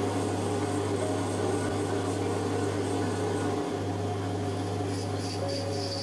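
Small metal lathe running steadily with a constant hum as it turns a brass rod.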